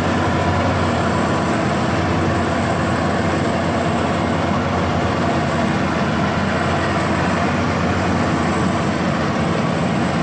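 Rice combine harvester running steadily under load, a constant engine hum under the even clatter and rush of the machine, with a faint high whine that comes and goes.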